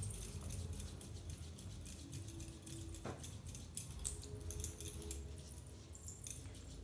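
Hands rubbing oil into a baby's leg, with a woman's bangles clinking lightly in many small quick clicks, and one sharper knock about three seconds in.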